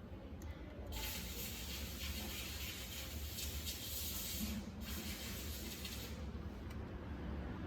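Hissing that starts about a second in, cuts off near the five-second mark and comes back fainter near the end, over a low steady hum.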